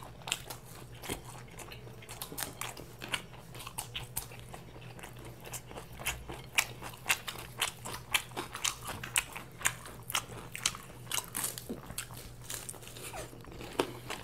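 Two people eating fried mughlai paratha with their hands: a continuous, irregular run of crunching bites and chewing clicks. A faint steady low hum sits underneath.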